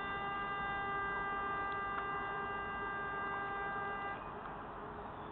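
Warning horn sounding one long steady note for about four seconds, the countdown signal before the crane is blasted, over steady outdoor background noise.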